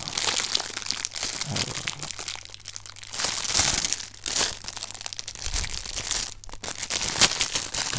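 Clear plastic wrapping crinkling as it is pulled off a metal smartphone case by hand, in irregular bursts.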